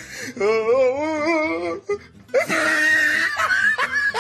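A person's voice: a long, wavering wail, then a loud, breathy, hoarse cry about halfway through.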